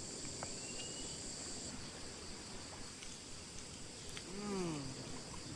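Insects in a steady high-pitched chorus, a continuous shrill drone. About four and a half seconds in, a brief pitched voice sound rises and then falls.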